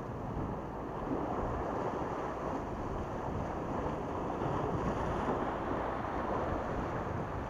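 Small waves washing against the rocks of a breakwater, with wind buffeting the microphone: a steady, unpitched rushing that swells slightly about a second in.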